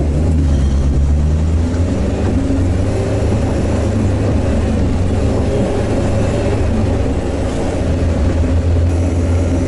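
Sherp all-terrain vehicle's diesel engine running under way across bog, heard from inside the cab: a steady low drone whose pitch shifts briefly in the first second or two, then holds.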